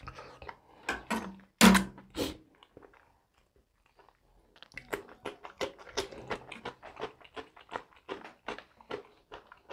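Close-miked eating sounds: a few loud bites and mouth sounds in the first two seconds, then a pause. From about halfway through comes steady crisp crunching as a raw cucumber slice is chewed, about four crunches a second.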